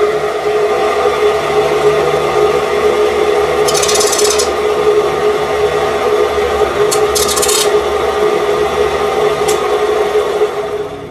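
Metal lathe running with a steady hum while a tool scrapes on the turning steel shaft, with two brief sharper, higher scraping bursts. The sound fades near the end.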